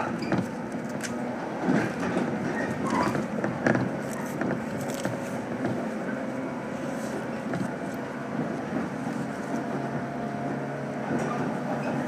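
Inside a 115 series electric train under way: steady rolling noise of wheels on rail, with scattered light clicks and knocks. A low steady hum comes up about ten seconds in.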